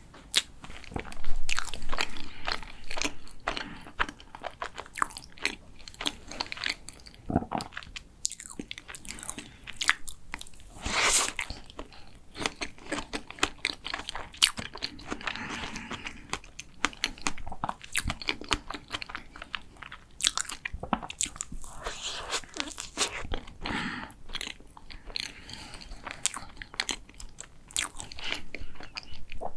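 Close-miked chewing of a chocolate macaron, with the shell crunching and crackling in quick irregular bites and a louder crunch about eleven seconds in.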